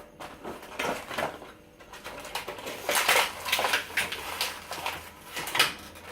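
Toy box packaging being handled and pulled at: irregular rustling, scraping and clicks, busiest a few seconds in.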